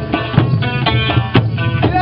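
Live folk music: a rope-tensioned drum beats a steady rhythm under a plucked lute.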